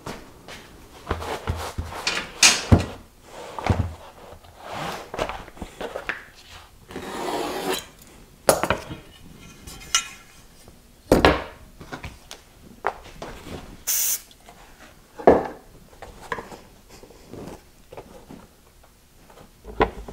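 Plywood drawers and drawer parts being handled: a string of separate wooden knocks, rubs and sliding sounds, with a longer scraping stretch about seven seconds in and a short high hiss about fourteen seconds in.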